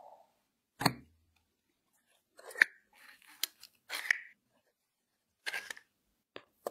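Plastic plunger-type mooncake mould clicking and clacking as it is pressed down onto the dough and lifted off: several short sharp clicks, spaced irregularly.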